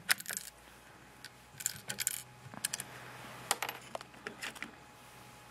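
Sharp metallic clicks and clinks as the bolt of a BSA Century .22 bolt-action rifle is worked, with a spent .22 brass case clinking onto the wooden bench. The clicks come singly and in small clusters over the first four and a half seconds.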